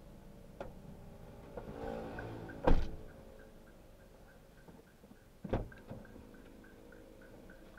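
Car doors shutting: two dull thuds, the first about three seconds in and the second near six seconds, over a faint quick ticking.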